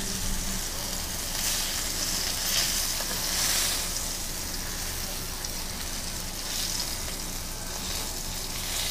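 Blackened snook fillets sizzling steadily in a hot frying pan, the pan still hot just after the stove is switched off.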